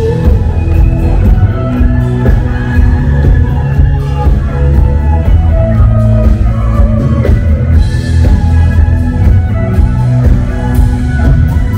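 Loud rock music with electric guitar and drum kit, playing continuously.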